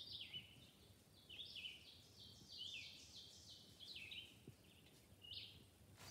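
Faint birdsong: a bird repeating short, high chirps that slide down in pitch, in loose bursts of a few notes.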